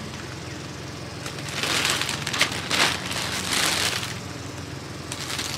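Plastic showbags and snack packets rustling and crinkling as hands rummage through them, in several bursts through the middle.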